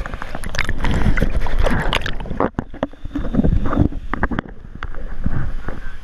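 Water sloshing and splashing against a GoPro camera held at the water's surface, with irregular gurgles and knocks as the microphone dips in and out of the water.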